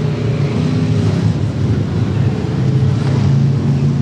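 Street stock race car engines running on a dirt oval, a steady low drone that firms into a steadier tone about three seconds in.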